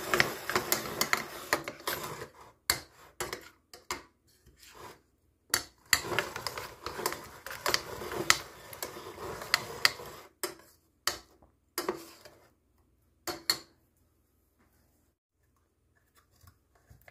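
A metal spoon stirring a thick, wet mixture in a ceramic bowl, scraping and clinking against the sides in two long spells with scattered clinks between. It stops about three-quarters of the way through.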